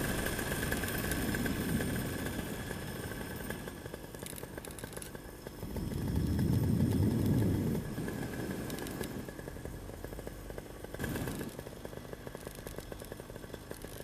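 Paramotor engine running steadily at low throttle, with wind rushing over the microphone that swells briefly about six seconds in.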